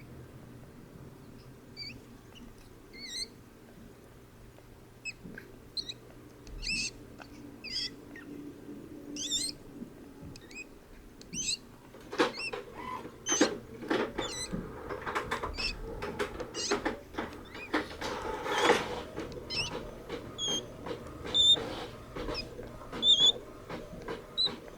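Golden hamster's open-mouth breathing and snoring, heard as small high-pitched squeaks and wheezes about once a second. From about halfway, rustling and clicking grows louder over the squeaks.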